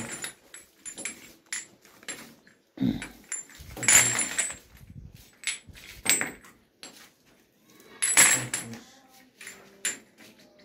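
Galvanized iron pipe elbows clinking and clattering as they are handled and counted out, with several louder rattles of the metal fittings knocking together.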